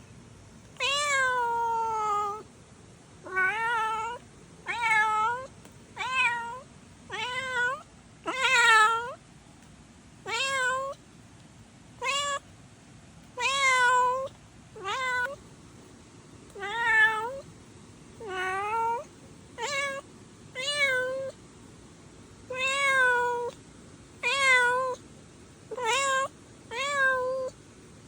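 Kitten meowing over and over, about twenty short calls, roughly one every second or so, each rising and falling in pitch.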